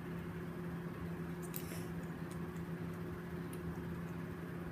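A few faint clicks and rustles of small plastic fidget spinner parts being handled, over a steady low hum.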